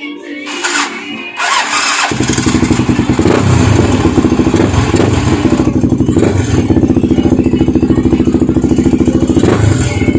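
Yamaha TT-R250's single-cylinder four-stroke engine starting after a brief crank, catching about two seconds in and then running at a steady, fast idle.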